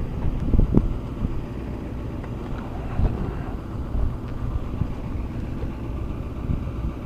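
Steady low rumble of a vehicle engine idling close by, with a few soft knocks about half a second in and again about three seconds in.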